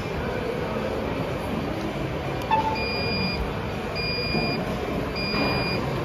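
Steady whirring rumble of a stationary bike being pedalled. In the second half, three short electronic beeps come a little over a second apart, after a brief lower blip, like a countdown timer.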